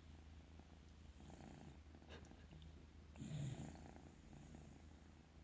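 Domestic cat purring steadily in a low, quiet rumble, with soft breaths about a second in and a louder one about three seconds in.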